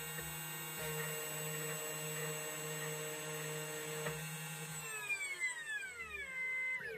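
Spindle motor of a 2M2 Tank CNC key cutting machine running with a steady whine during a key cut. About five seconds in, its pitch slides down as the spindle spins down at the end of cutting.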